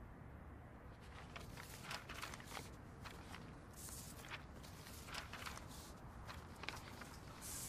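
Quiet room with faint, scattered rustles and light taps, as of small movements at a table.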